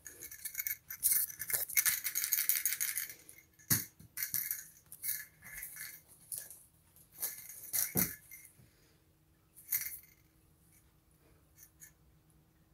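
A cat's small rattle ball toy rattling in bursts as the cat bats and rolls it over carpet. The rattling is longest and loudest a second or two in, then comes in short shakes, and it stops about ten seconds in.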